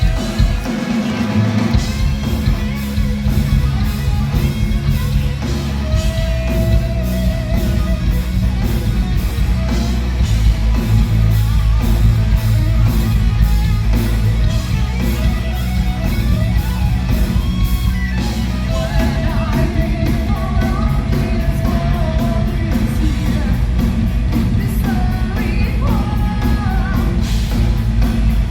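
A heavy metal band playing live: distorted guitars and bass over a fast, steady drum beat, with a held lead melody line rising over the top a few times.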